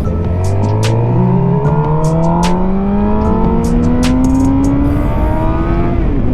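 Motorcycle engine accelerating hard, its pitch rising steadily for about six seconds, then dropping sharply near the end as the rider shifts up a gear, over constant wind rush.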